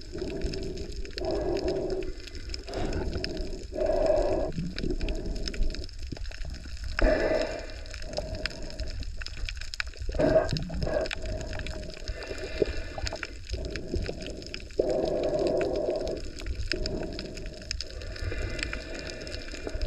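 Muffled sloshing and gurgling water in uneven swells over a steady low rumble.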